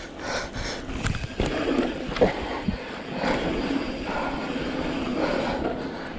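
Mountain bike rolling fast over a dirt singletrack: tyre noise on the trail, with irregular knocks and rattles from the bike over bumps and roots.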